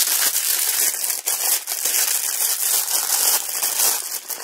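Packaging of a trading-card starter pack crinkling and crackling as it is opened by hand: a dense, continuous run of sharp crackles.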